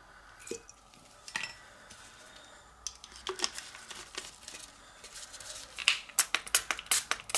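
Light clicks and knocks of hard plastic being handled: a couple of single clicks early on, then a quick, irregular run of them near the end.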